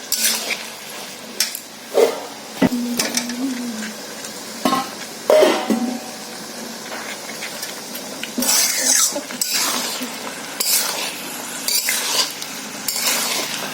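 Metal spoon stirring and scraping around a kadai of chickpeas in frying masala, with irregular scrapes and clinks over a low sizzle.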